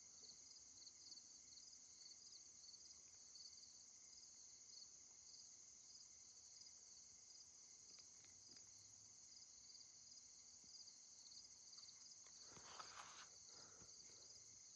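Faint chorus of crickets chirping steadily, with a brief faint rustle near the end.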